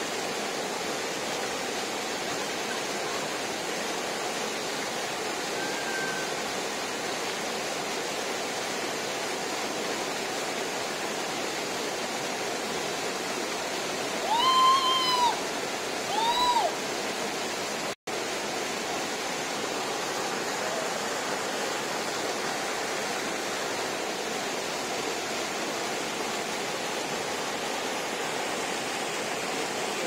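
Steady rush of a waterfall pouring into a rocky swimming pool. About halfway through come two short high-pitched calls, each rising then falling in pitch.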